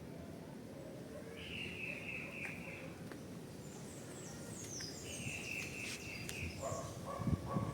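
Songbirds calling over a steady low outdoor rumble: two drawn-out notes a few seconds apart, with quick high falling chirps around the second one. A low thump sounds near the end.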